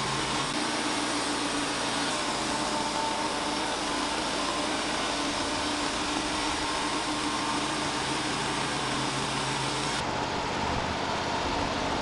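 Wood-Mizer portable bandsaw mill sawing: the sawhead's engine running steadily under load while the band blade cuts lengthwise through a log.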